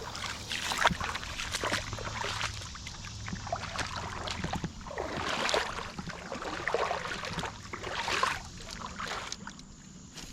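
Creek water sloshing and splashing in irregular surges, with a few sharp knocks, fading near the end.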